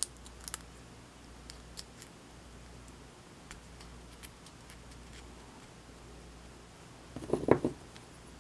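Small metallic clicks and taps from working a shim into a euro cylinder lock to push its plug out, with a short burst of rattling clatter near the end.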